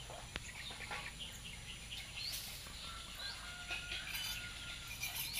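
Faint outdoor ambience with small birds chirping now and then, and a thin held whistled note a little after the middle.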